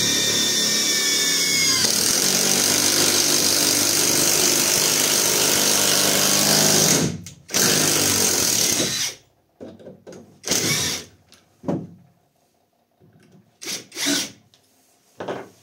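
Catpower 4226 cordless impact wrench, fitted with a screwdriver bit, drives a long Buldex screw into hard wood. It runs continuously under load for about seven seconds, stops briefly, then runs for about a second and a half more, followed by several short bursts as the screw is driven home.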